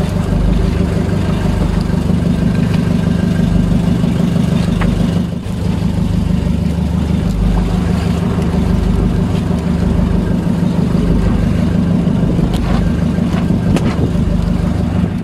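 Fishing boat's engine running steadily, dipping briefly about five seconds in. A few light knocks come near the end.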